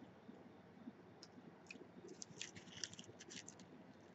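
Faint crinkling of a McDonald's cheeseburger's paper wrapper as it is handled, a run of small crackles in the middle seconds.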